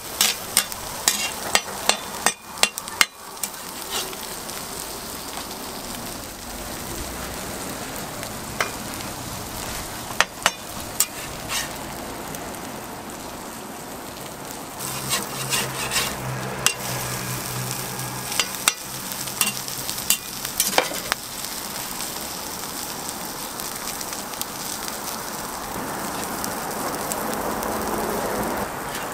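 Egg and shredded ham sizzling steadily on a hot flat steel griddle, with a metal spatula clacking and scraping against the griddle plate, in quick runs during the first few seconds and again around the middle.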